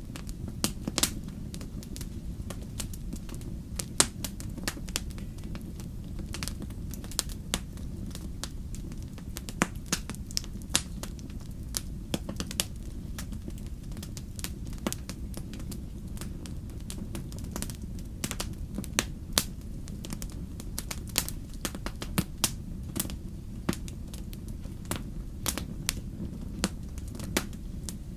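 Wood campfire crackling: irregular sharp pops and snaps, several a second, over a steady low rumble of the burning fire.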